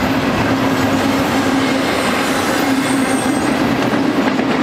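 A double-stack intermodal freight train rolling along the rails as its last cars move off: steady rolling noise with a constant low hum.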